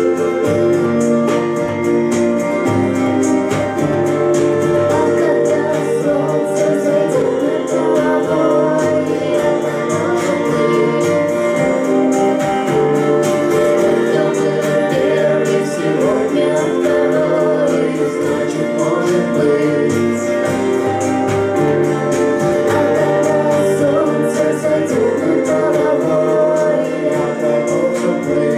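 A band playing a song live, with a voice singing over sustained keyboard chords.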